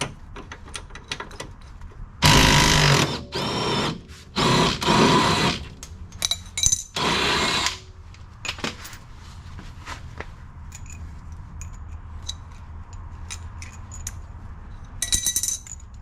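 A power wrench on a suspension bolt, run in several short bursts from about two seconds in to nearly eight seconds, and once more briefly near the end, with light metallic clicks of tools and sockets between.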